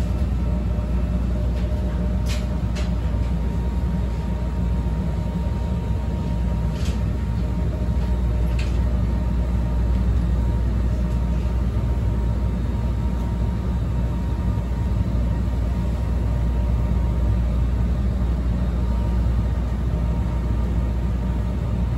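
Steady low hum of a standing CTA 5000-series rapid transit car's onboard equipment, with a faint steady whine above it, heard inside the car. A few faint clicks come about two, seven and nine seconds in.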